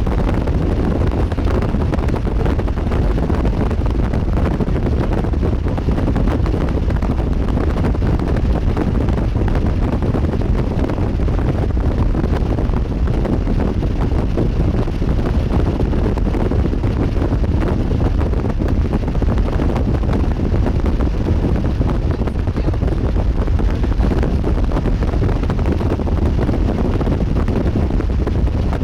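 Strong wind buffeting the microphone: a steady, loud rushing rumble, heaviest in the low end, with no distinct events.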